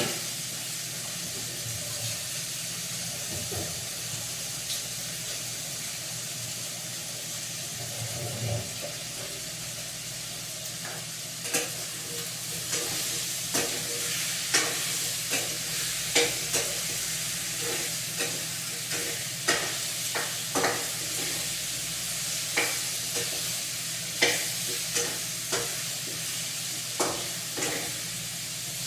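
Food frying in a pan with a steady sizzle. From about a third of the way in, a cooking utensil stirring it knocks and scrapes against the pan, about once a second.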